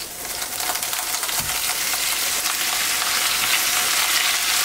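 Raw ground beef sizzling in hot melted butter as it is pressed into a skillet, the frying growing louder over the first couple of seconds and then holding steady.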